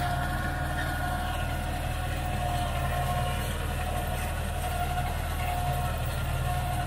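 New Holland 3630 tractor's three-cylinder diesel engine running steadily under load at low revs, around 1200–1300 rpm, while driving a rotary super seeder through stubble: an even drone with a steady whine above it.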